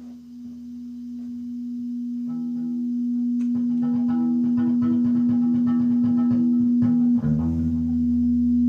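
Electric guitar feeding back through its amplifier: one sustained tone that swells steadily louder, while other notes are played beneath it from about two seconds in.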